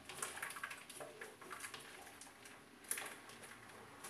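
Faint light ticks and scrapes of a spoon working blended corn pulp through a plastic sieve, with one sharper click about three seconds in.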